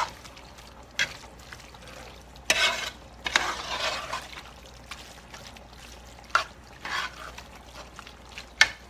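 A spoon stirring crawfish étouffée in a pot: short scraping strokes through the thick gravy, with a few sharp knocks of the spoon against the pot.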